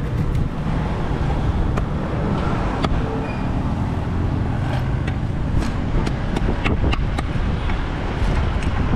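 Sharp, scattered knocks of a large knife striking a wooden stump chopping block as tilapia are cut, over a steady low rumble.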